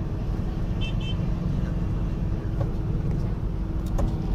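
Motorbike and small-truck engines running in a crowd, a steady low rumble with a steady hum. Two short high beeps sound about a second in.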